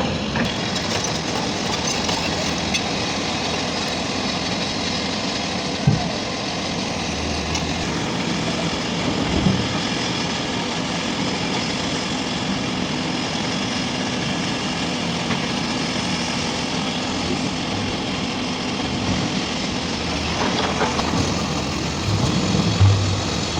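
Heavy diesel earthmoving machinery running steadily, with a few short knocks from the work.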